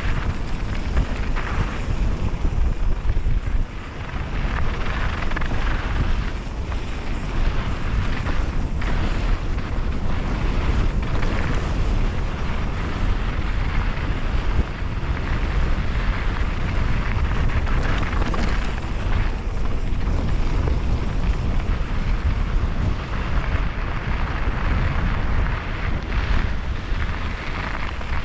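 Wind rushing over the microphone of a camera on a mountain bike riding down dirt singletrack, mixed with the bike's rumble and rattle over bumps in the trail.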